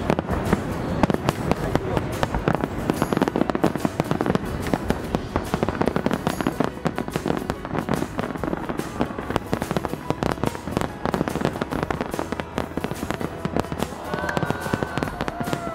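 Aerial fireworks shells bursting in a rapid, continuous barrage of bangs and crackles, a dense finale-style volley with no gaps.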